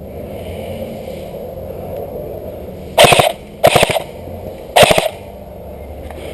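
Airsoft gun firing three short rapid-fire bursts, each a quick string of sharp clacks, about a second apart, over a steady low rustle.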